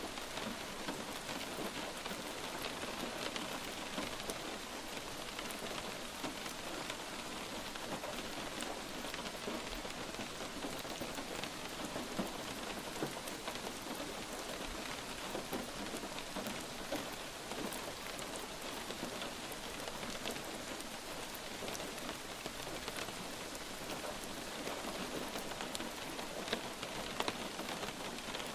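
Steady light rain falling, an even hiss with many small drops pattering on a surface.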